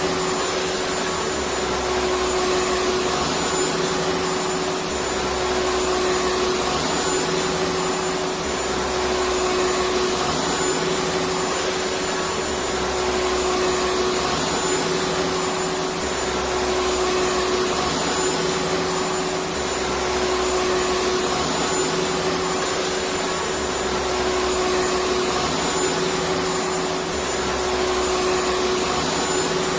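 Vacuum cleaner running steadily: an even rushing hiss with a constant motor whine.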